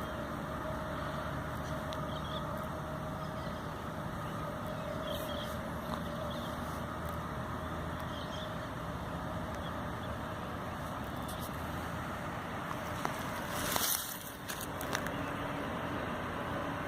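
Steady low mechanical rumble with a faint hum, like engine or traffic noise, broken by a sudden loud burst of noise about fourteen seconds in.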